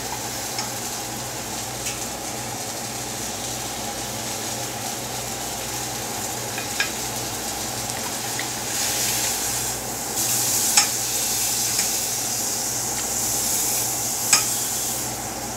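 Chicken strips frying in a pan, a steady sizzle that swells louder about nine seconds in, with a few light clicks and a low steady hum underneath.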